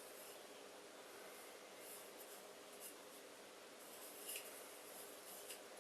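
Near silence: faint room tone with a few soft, short scraping sounds, the loudest about four seconds in.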